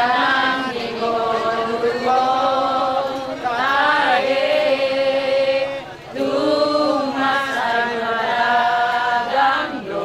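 A group of people singing together in slow, held notes, with a brief pause about six seconds in.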